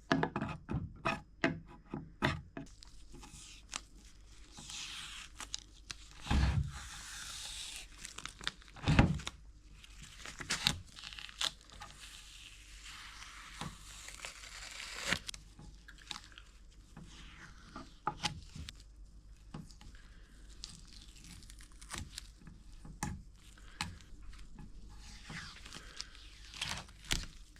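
Paper stickers being peeled and torn off a wooden dresser: scattered tearing and crinkling, with many small clicks and two heavier knocks a few seconds apart.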